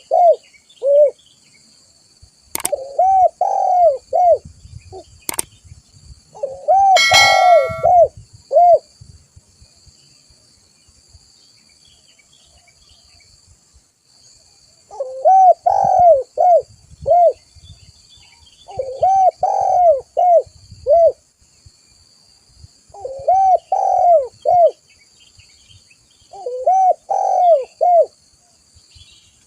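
Spotted dove (tekukur) calling vigorously: about seven repeated cooing phrases, with a pause of several seconds in the middle. Two sharp clicks come early on.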